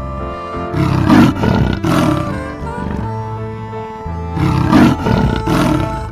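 Two loud animal roars, each about a second and a half long, one about a second in and one near the end, over steady instrumental background music.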